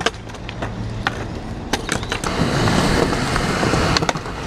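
Skateboard wheels rolling on concrete, with a series of sharp clacks of the board against the ground and ledge. The rolling grows louder for a couple of seconds in the middle.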